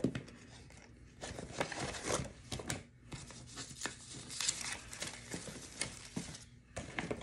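A stack of one-dollar bills rustling and crinkling as it is pulled out of a binder envelope and handled, with irregular short paper crackles and taps.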